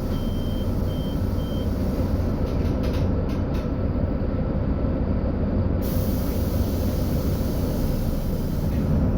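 Mercedes-Benz O-500U city bus engine running with a steady low rumble, with three short high beeps in the first second and a half.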